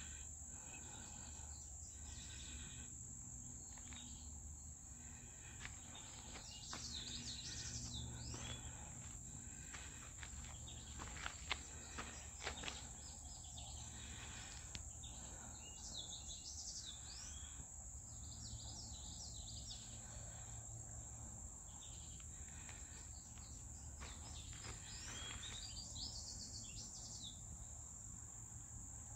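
Faint summer prairie ambience: insects keep up a steady high-pitched trill, while birds chirp in short bursts a few times. A few sharp clicks fall near the middle.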